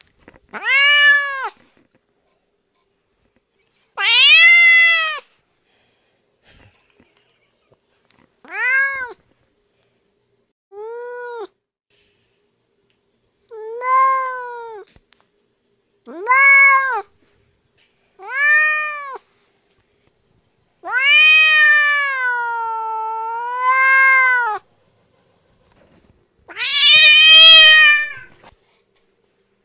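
Domestic cat meowing angrily: about nine separate drawn-out meows with pauses between them, each rising and falling in pitch. A long wavering meow comes about two-thirds of the way through, and a harsher, louder one near the end.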